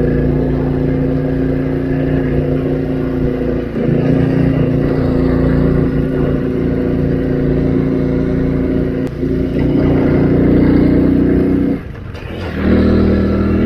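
Motorcycle engine running at steady revs on the road. Its pitch shifts slightly about four and nine seconds in, and it drops off briefly near the end before picking up again, as with a gear change.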